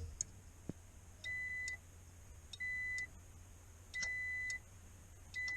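Furnace pressure switch clicking closed and open four times as vacuum is applied to it, with a multimeter's continuity beep sounding each time the contacts close: the switch is making and its diaphragm is working.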